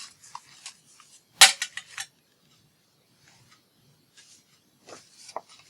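Paper and craft pieces handled on a tabletop: one sharp crisp click about a second and a half in, a few lighter clicks just after, then faint ticks and rustles near the end.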